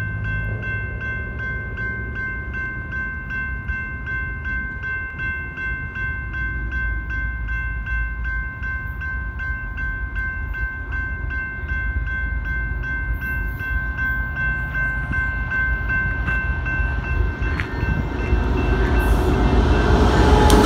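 Grade-crossing warning bell ringing in quick, even strokes, over the low rumble of an approaching freight train led by an EMD SD70ACe diesel locomotive. The rumble grows louder over the last few seconds as the locomotives reach the crossing.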